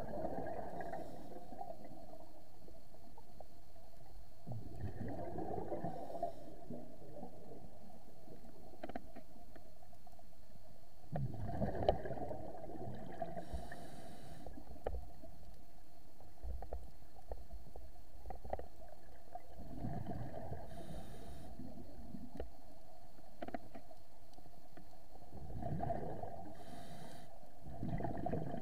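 Scuba diver's breathing through a regulator, heard underwater: gurgling bursts of exhaled bubbles about every six seconds, with softer hissing inhalations between them, over a steady faint hum and a few small clicks.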